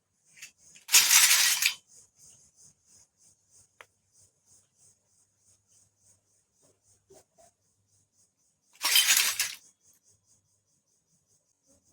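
Plastic toy kitchen pieces being handled during unboxing: two short, loud clattering bursts, about a second in and again about nine seconds in, over a faint, fast, high ticking.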